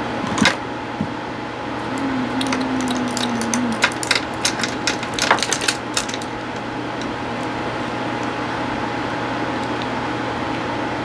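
Steady background hiss and hum with a quick run of small sharp clicks and taps about four to six seconds in, made by small objects being handled on a table.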